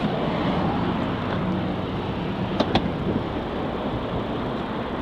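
Steady vehicle and road noise with a low hum, broken by two sharp clicks in quick succession about halfway through.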